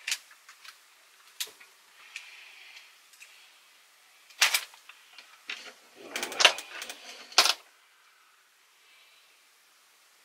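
Sharp plastic and metal clicks from hands working a Philips N2234 cassette recorder's tape mechanism, with the cassette being taken out. A few single clicks come first, then a busy cluster of clatter about six seconds in.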